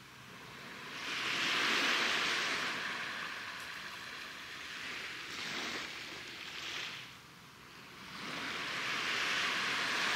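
Waves washing ashore: a hiss that swells and fades about every four seconds.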